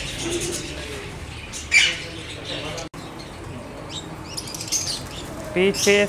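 Caged lovebirds chattering with shrill, screechy calls: a sharp shriek about two seconds in, scattered calls later, and a busier run of chatter near the end, over a steady low background hum.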